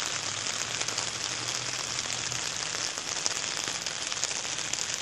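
Steady rain falling, a dense patter of many small drop impacts at an even level.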